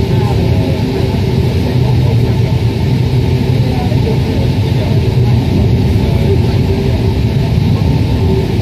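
Paris Metro Line 1 rubber-tyred train running at speed through a tunnel, heard from inside the car: a loud, steady rumble of tyres and running gear.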